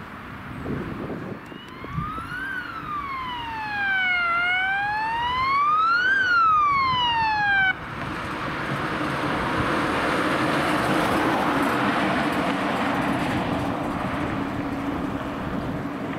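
Ambulance siren in a slow wail, rising and falling twice, then cutting off suddenly about halfway through. After it, a Mercedes-Benz Sprinter ambulance drives past with steady engine and tyre noise.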